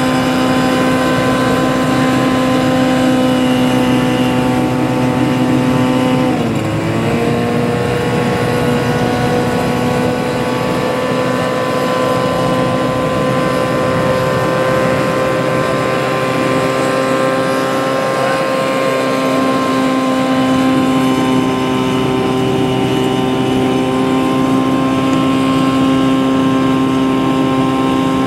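Small personal hovercraft's engine and rear ducted fan running at a steady pitch. About six seconds in the pitch drops sharply for a moment and climbs back, then holds steady again.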